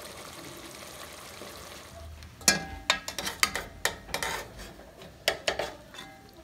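A metal spoon scoops curry out of a metal cooking pot into a white bowl, knocking and clinking against the pot and bowl about a dozen times with wet scooping between the strokes. It starts after a couple of seconds of faint steady hiss.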